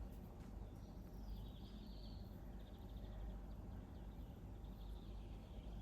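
Faint bird chirps and a short trill over a steady low background rumble.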